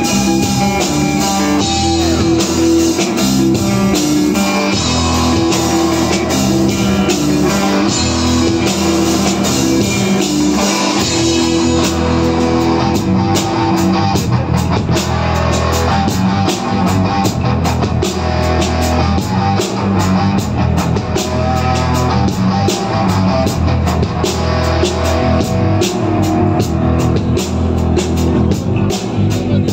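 Live rock band playing an instrumental passage without vocals: two electric guitars, bass guitar and drum kit.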